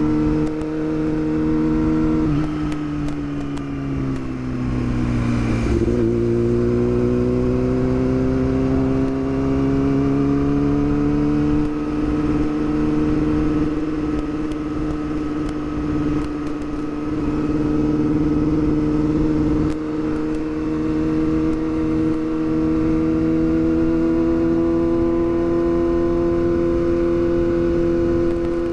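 Yamaha R6's inline-four engine riding at steady revs. About two seconds in the revs fall away, a step up a few seconds later brings them back, as on a downshift, then the pitch climbs slowly and holds steady.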